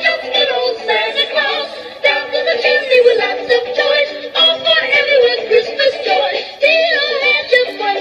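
Mr. Christmas Lights & Sounds of Christmas miniature jukebox playing recorded Christmas music through its separate speaker box, a melody over a steady beat.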